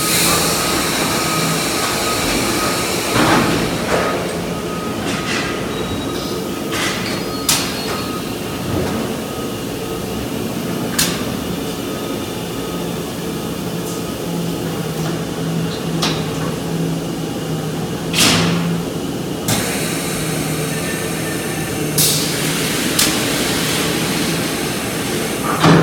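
Rotary thermoformer running through its cycle: a steady machine hum, several bursts of hiss and several sharp clanks as the clamp frames move round the carousel track.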